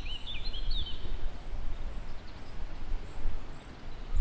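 Small birds chirping in quick rising and falling calls, stopping about a second in, over a steady low rumbling noise.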